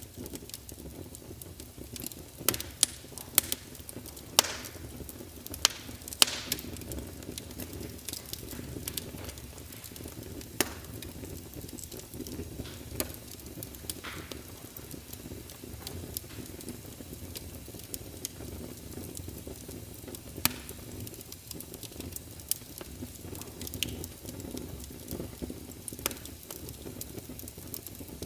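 Wood fire in a fireplace crackling, with irregular sharp pops that are thickest in the first several seconds, over a steady low rumble.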